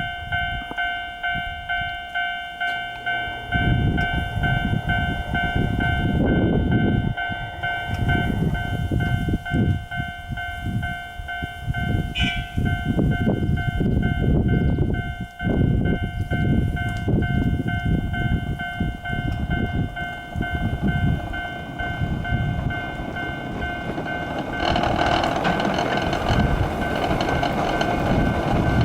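Japanese level-crossing warning bell ringing steadily, about two strokes a second. A low rumble runs underneath from about four seconds in and grows louder near the end.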